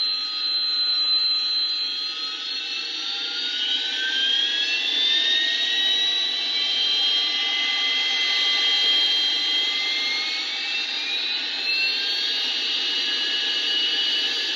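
Jet fighter engine running with a steady roar and a high turbine whine that glides upward in pitch a few seconds in and shifts again near the end.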